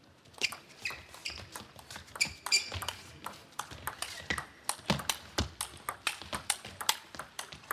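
Table tennis rally: the celluloid ball clicking sharply and quickly off the bats and the table, many hits a second, starting with the serve about half a second in.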